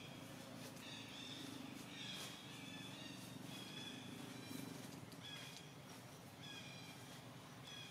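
Forest ambience: birds in the surrounding trees giving repeated short, high-pitched calls, each about half a second long, over a faint steady low hum.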